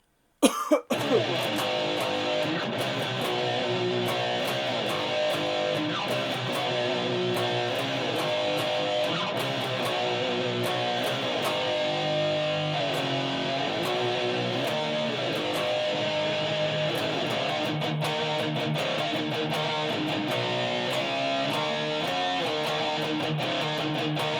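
Solo electric guitar playing a medley of heavy metal, rock and prog riffs, shifting between melodic note runs and bends. It starts with a sharp, loud burst about half a second in.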